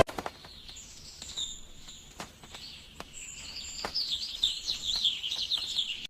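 Birds chirping in quick high-pitched trills, growing busier and louder from about halfway through.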